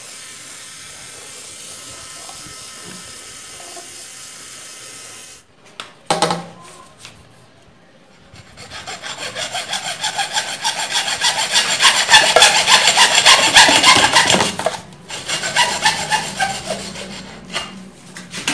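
A steady hiss for about the first five seconds, then a single knock, then a hacksaw cutting through a white PVC pipe with quick back-and-forth strokes. The sawing is loudest in the middle and softer over the last few seconds.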